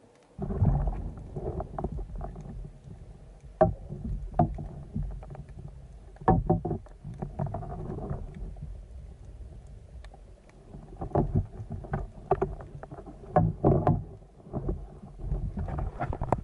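Underwater water noise picked up by a speargun-mounted camera: a muffled rushing and sloshing that starts suddenly about half a second in, with many sharp, irregular knocks and clicks as the diver handles a speared bluefish on the gun.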